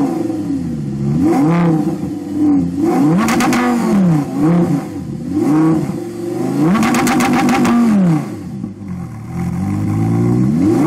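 Modified Audi R8 Spyder revved repeatedly while standing still: about six rev blips, each rising and falling back to idle, the longest about seven seconds in.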